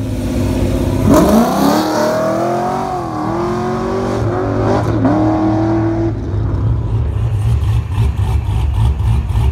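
Car engine revving hard as it accelerates away, its pitch jumping up about a second in and dipping and climbing again between gears. From about six seconds in this gives way to a Corvette's V8 rumbling low and steady.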